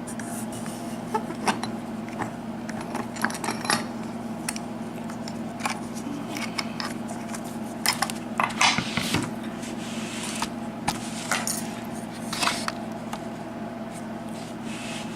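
Irregular light metallic clicks and clinks of a 6-pin US Lock key-in-knob cylinder and lock picking tools being handled just after the lock was picked open, busiest about halfway through, over a steady low hum.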